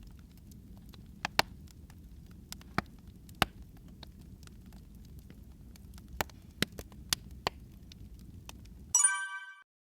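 Wood fire in a fireplace crackling, with irregular sharp pops over a low steady rumble. About nine seconds in, a brief ringing pitched tone sounds and the audio then cuts off.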